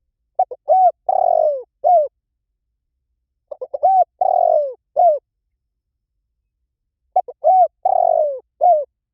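Spotted dove cooing: three phrases about three seconds apart, each a couple of short coos, a longer, rougher coo and a final coo.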